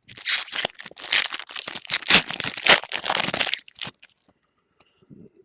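Foil wrapper of a baseball card pack crinkling and tearing as it is opened, stopping about four seconds in.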